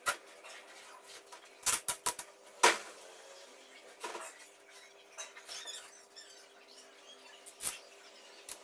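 Book-binding tape being handled and cut while it is stuck over gaps in wooden planks. A quick cluster of sharp ripping and clicking sounds comes about two seconds in, with another shortly after, then softer scratchy rustling, and near the end a sharp snip of scissors cutting the tape.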